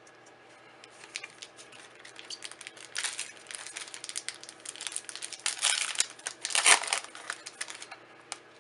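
Plastic foil wrapper of a Core 2021 draft booster pack crinkling and crackling as it is handled and torn open. The loudest crinkles come in bursts about three seconds in, around five and a half to six seconds, and just before seven seconds.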